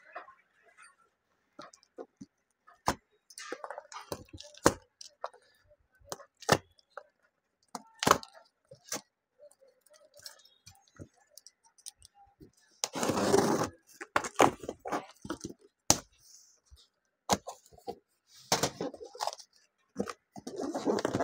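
Packing tape on a cardboard box being slit with a cutter and the box flaps pulled open: scattered sharp clicks and scrapes, with a longer ripping, rustling stretch partway through and another near the end.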